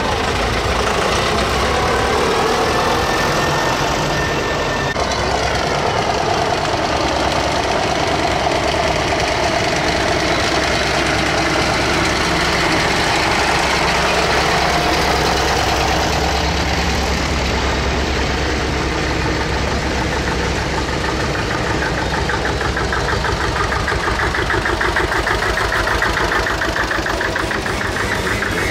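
Diesel tractor engines chugging steadily as tractors drive past one after another, among them an old Pionier tractor.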